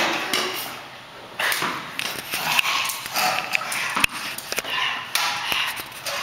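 Indistinct vocal noises and scuffling movement, with a sharp knock about four seconds in.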